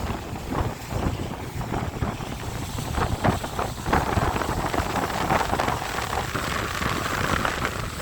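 Wind buffeting the microphone in irregular gusts aboard a boat at sea, with boat and water noise underneath.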